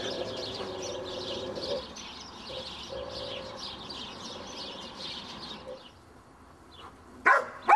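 Small birds chirping busily and continuously in the background, fading out after about six seconds. Near the end a German shepherd starts barking, louder than the birds.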